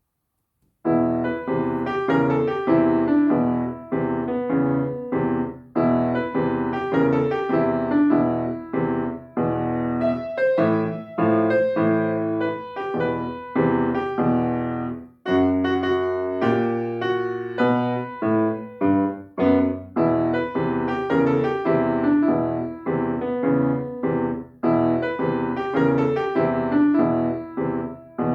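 Solo piano playing a blues piece, starting about a second in.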